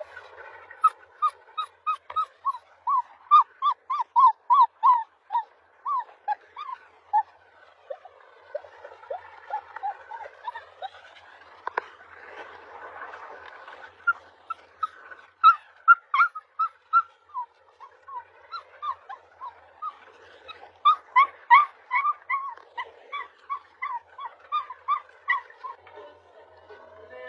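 Puppy yipping in long runs of short, high calls, about three a second, with a lull near the middle before the calls start again.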